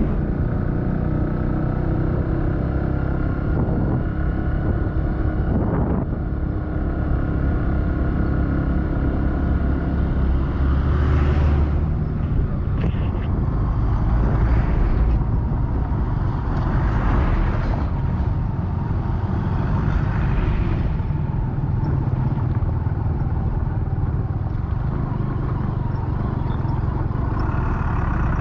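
A vehicle engine running steadily while travelling along a road. Four or five rushes of noise rise and fade through the middle.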